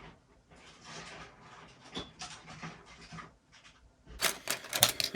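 A plastic parts bag rustling as it is handled, then small plastic building bricks clicking and clattering as they are tipped out and sorted, starting about four seconds in.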